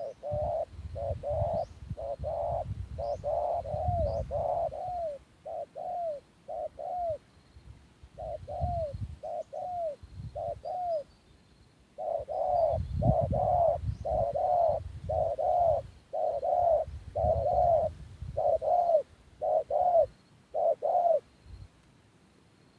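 Spotted dove cooing in three runs of short, repeated coos, each note falling slightly in pitch, over a low rumble.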